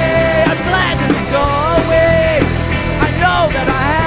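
Indie rock song playing, a passage without lyrics: one melodic lead line holds notes and slides between them over a full band backing.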